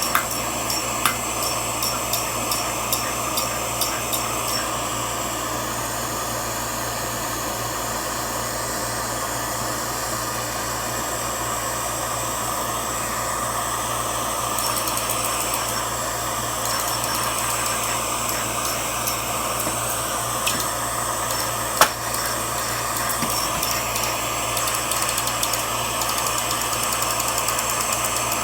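Metal-melting furnace running with a steady rushing noise. A run of light ticks comes in the first few seconds, and a single sharp knock about three-quarters of the way through.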